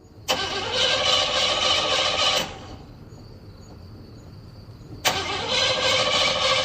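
Car engine cranking on its starter motor without catching: one crank of about two seconds, a pause, then a second crank starting about five seconds in.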